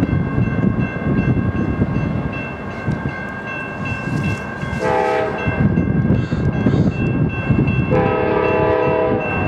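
GE P42DC diesel passenger locomotives approaching with a steady low engine rumble, sounding the air horn twice: a short blast about five seconds in and a longer one about eight seconds in, as a grade-crossing warning. Steady high ringing from the crossing signal bell runs underneath.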